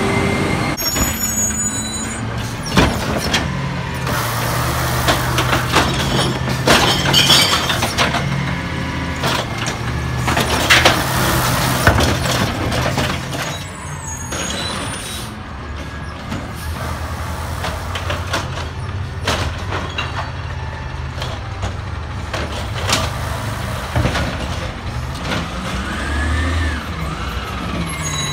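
Compressed-natural-gas Peterbilt 320 side-loader garbage truck running as it moves along the curb and pulls up: a steady low engine drone with scattered metallic clunks and air-brake hiss.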